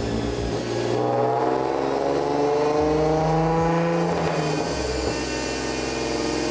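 Turbocharged 2009 Nissan 370Z's 3.7-litre V6 running hard on a chassis dyno, revs climbing steadily for about four seconds, then falling away about five seconds in and holding lower.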